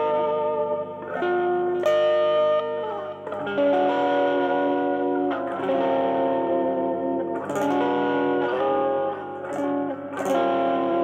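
Stratocaster-style electric guitar played solo, with held notes and chords that ring for a second or two each and a string bend about three seconds in.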